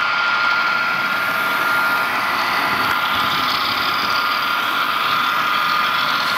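HO-scale DCC sound-equipped locomotive running with its shell off: steady diesel engine sound from the decoder's small speaker, with a steady buzzing tone through it that the operators put down to the motor turning.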